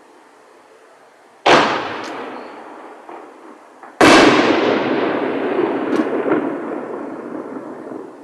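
Consumer artillery shells bursting in the air: two loud bangs about two and a half seconds apart, each trailing off in a long fading rumble, with a few small pops in between.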